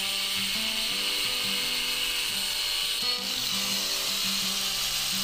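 Doliz BA730 angle grinder with a metal cut-off disc grinding through a 12 mm steel reinforcing bar, a steady high-pitched cutting hiss. The disc keeps spinning fast under load. Background music plays along.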